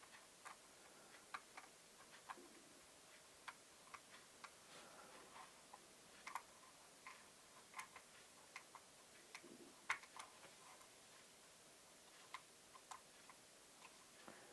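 Faint, irregular light clicks and taps of small plastic drone parts and a small screwdriver being handled while propeller blades are swapped, with one louder tap about ten seconds in.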